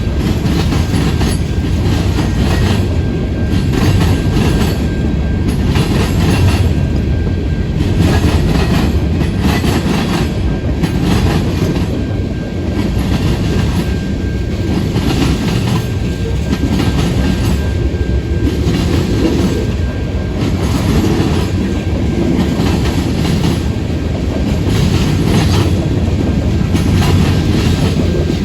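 A freight train rumbling steadily past at close range, its cars' wheels clacking over the rail joints in irregular clusters. A faint high wheel squeal comes and goes.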